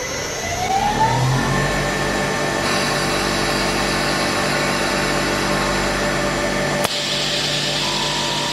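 EagleTec EA-T6015A CNC wood lathe spinning up with a rising whine over the first second and a half, then running steadily. A harsher hiss joins about three seconds in, and there is a sharp click near the end.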